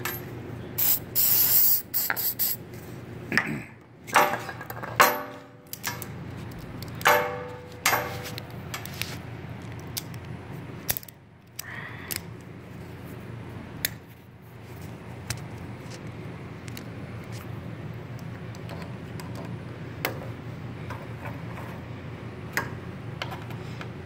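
A short hiss of aerosol spray lubricant, shot into a stuck lock cylinder to loosen it, comes about a second in. Scattered metal clicks and clinks of hand tools and the cylinder being worked follow.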